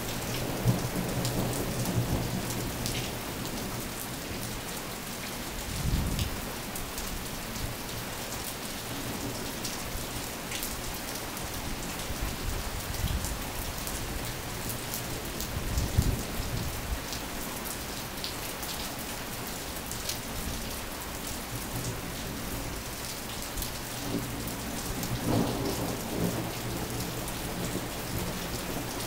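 Steady heavy rain pouring down, with many small drop ticks, and thunder rumbling several times: near the start, about six seconds in, about sixteen seconds in and again near the end.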